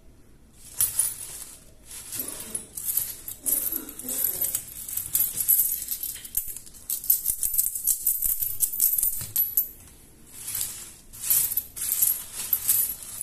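A pile of folded paper banknotes rustling and coins clinking as a hand rummages through them and lets them fall, in irregular bursts with a short pause about ten seconds in.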